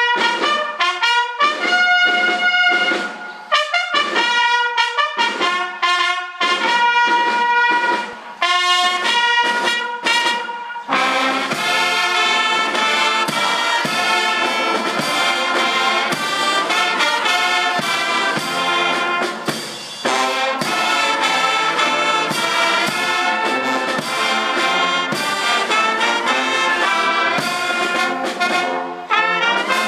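Brass band playing: for about the first third, short phrases of held notes with pauses between them, then the full band plays on without a break.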